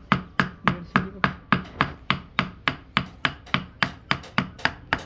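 Wooden mallet striking the handle of a carving gouge in a steady rhythm of about four sharp knocks a second, driving the gouge into the wood.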